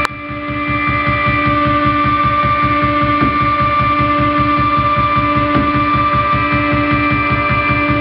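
Experimental electronic drone played live: a loud, steady held tone stacked in octaves over a fast, even low pulsing throb. A sharp click at the very start is followed by a brief dip in loudness that swells back within about a second.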